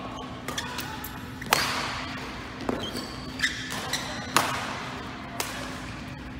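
Badminton rally: racket strings striking a shuttlecock with sharp cracks, the two loudest about a second and a half and four and a half seconds in, among lighter knocks and short squeaks of court shoes.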